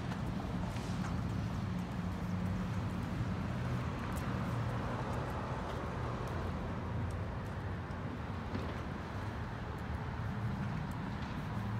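Footsteps on a concrete sidewalk with a steady rumble of street traffic behind them.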